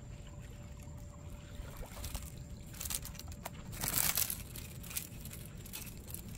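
Splashing from a hooked juvenile tarpon thrashing at the water's surface as it is landed, in a few short bursts, the loudest about four seconds in, over a steady low rumble.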